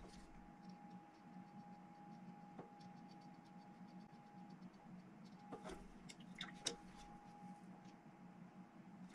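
Near silence: a faint steady room hum, with a few light clicks and taps from handling the miniature on its plastic painting handle, most of them in a cluster just past the middle.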